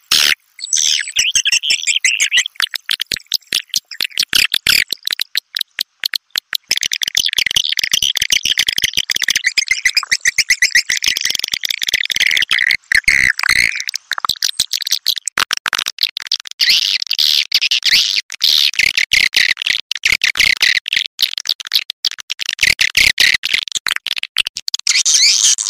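Swiftlet call sound played through a magnet tweeter: dense, rapid trains of high chirps and clicks with no pause, a lure for edible-nest swiftlets.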